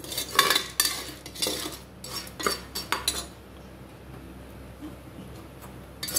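Metal spoon stirring popcorn kernels in oil in an aluminium pot, scraping and clinking against the pot's bottom and sides for about three seconds, then going much quieter.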